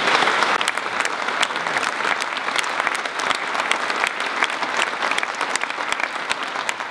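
Audience applauding steadily in a large hall, a dense mass of handclaps after a keynote speech ends.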